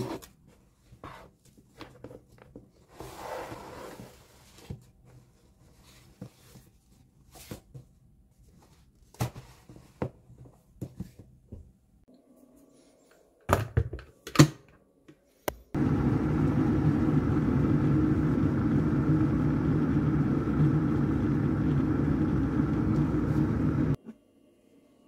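Light clicks and knocks of handling, then two sharp knocks about a second apart, followed by a loud, steady machine drone with a constant hum that runs for about eight seconds and cuts off suddenly.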